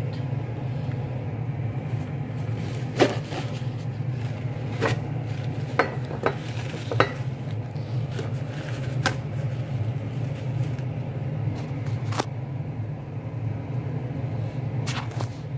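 Glass and kitchen items being handled on a countertop: a scattering of sharp clicks and knocks, some paper-towel wiping, over a steady low hum.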